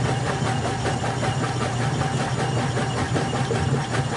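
Traditional top-loading washing machine agitating: a steady low motor hum under a fast, even chugging from its geared drive and transmission.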